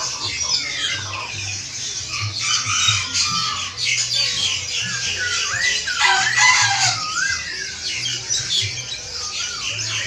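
Dense chorus of many caged birds chirping, trilling and squawking at once, with wavering whistled calls that rise and fall, over a low hum.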